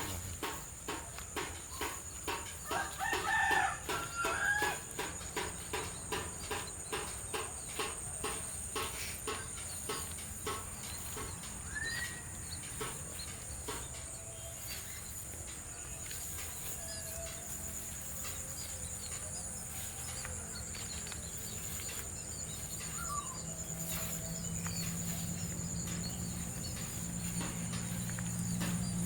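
A rooster crows about three seconds in, over a steady high-pitched insect drone and an even clicking, about two to three clicks a second, that fades out less than halfway through.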